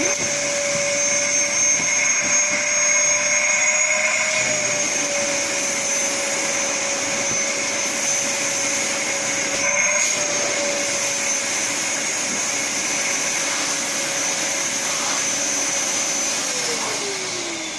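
Henry cylinder vacuum cleaner running with a steady whine, its pitch wavering briefly twice, then switched off near the end, the whine falling as the motor spins down.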